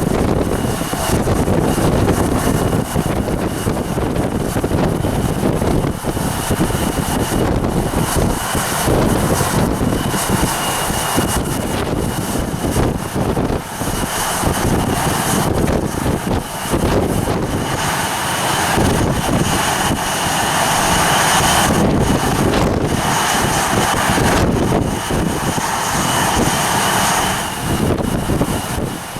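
Jet airliner engine noise with a steady high whine, under wind buffeting the microphone; the engine noise swells in the second half.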